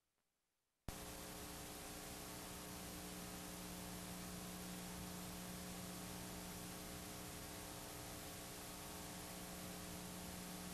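Videotape playback noise: a click about a second in, then a steady faint hiss with a low electrical hum.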